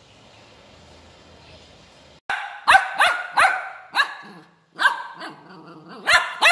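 Puppy barking angrily: about seven sharp, high-pitched barks that start about two seconds in, some coming in quick pairs.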